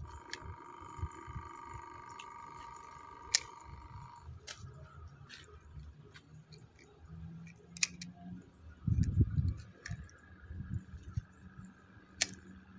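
Faint handling noise from a spinning rod and reel held close to the microphone, with a few sharp clicks a few seconds apart. A faint steady hum sits underneath for the first four seconds.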